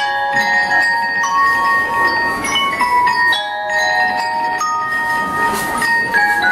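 Bell lyre (marching glockenspiel) struck with a beater, playing a melody of ringing metal-bar notes that overlap and sustain.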